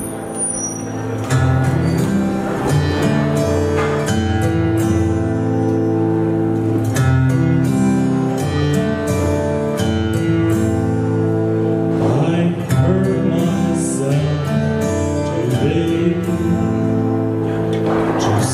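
A song's accompaniment with held chords over a bass line and a light beat, as the opening of a vocal performance.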